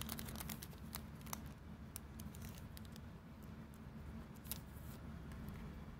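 Faint handling of a paper insert and a plastic-sleeved photo card: scattered light clicks and crinkles, over a low steady hum.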